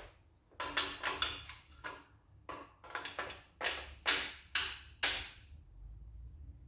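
Metal hand tools and sockets clinking and clattering: about a dozen irregular sharp clanks with short ringing, like tools being picked through and handled.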